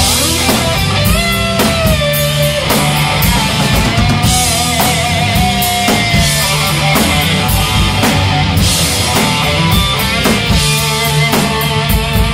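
Live rock band playing an instrumental passage. An electric guitar plays held lead notes that bend and slide in pitch over steady drums and bass.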